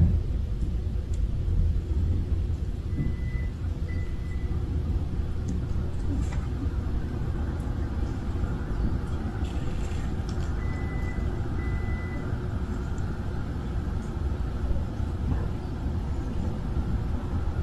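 Steady low rumble of outdoor background noise. Two pairs of short, even, high beeps sound about three seconds in and again about eleven seconds in.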